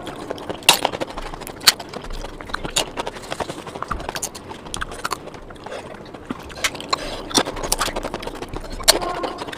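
Close-up eating sounds of mouthfuls being chewed fast, with irregular sharp smacks and clicks.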